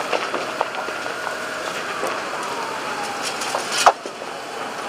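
A large building fire: a steady rushing noise with scattered crackles and pops, and one sharp, loud crack about four seconds in. A faint whining tone slowly rises and then falls behind it.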